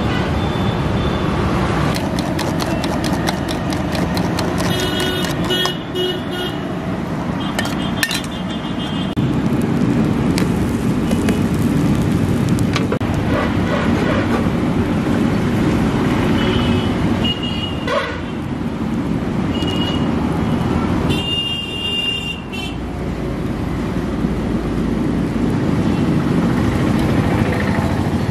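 Steady roadside traffic noise with vehicle horns tooting several times, one longer honk about 21 seconds in, over a low background of voices.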